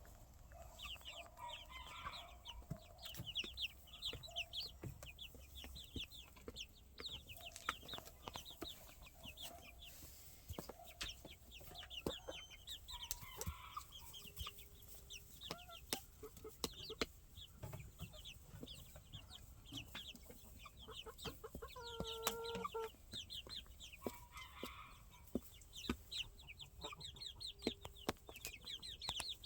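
Chicks peeping in rapid runs of short, high, falling peeps, with lower clucking calls mixed in and one longer, lower call about two-thirds of the way through. Sharp clicks are scattered throughout.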